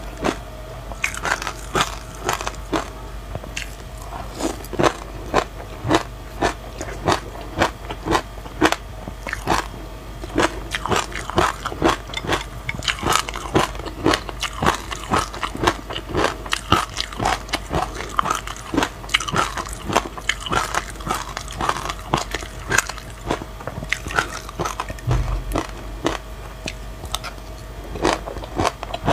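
Close-miked chewing of a mouthful of sesame seeds with passion fruit pulp and anise seed: dense, crisp crunching, several sharp crackles a second, with one low thump near the end.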